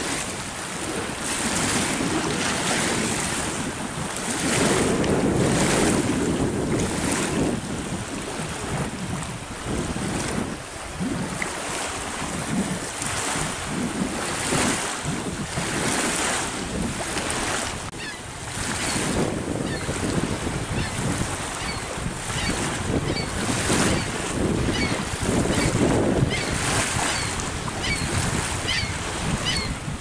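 Wind buffeting the microphone over surf, swelling and easing in gusts. In the last third, short high chirps repeat quickly over the noise.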